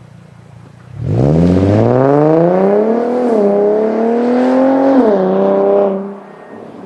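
2012 Infiniti G37x's 3.7-litre V6 through an ISR single-exit exhaust, going from idle to hard acceleration about a second in. The pitch climbs with two brief drops, about two and four seconds in, where it shifts up, then it backs off to a low drone near the end.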